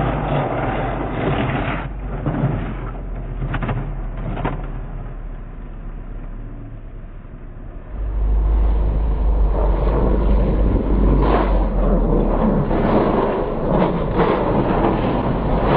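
A Honda CBR sportbike sliding and scraping on the road after a lowside, mixed with a rough engine rumble and repeated short scrapes and knocks. About eight seconds in, the sound turns abruptly louder and steadier.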